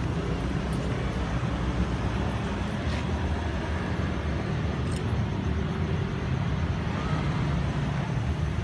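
Road traffic: a steady low rumble of vehicles on the street, with a couple of faint clicks.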